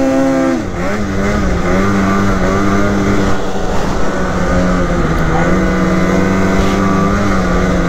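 Polaris Matryx Assault 146 snowmobile's 850 Patriot two-stroke twin running hard at high revs. The revs drop about half a second in, then hold steady at speed with a few small dips.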